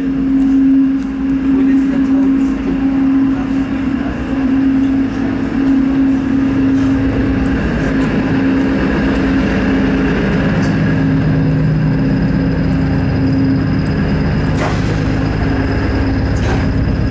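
AKN diesel railcar's engine running, heard from inside the passenger cabin as a steady drone with rumble beneath; a second, lower tone joins for a few seconds past the middle, then fades.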